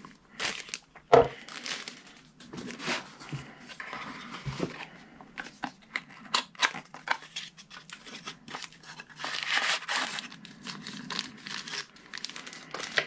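Hands handling accessory packaging: plastic wrap and small cardboard boxes crinkling and rustling in irregular bursts, with small knocks as items are set down. The loudest is a sharp click about a second in.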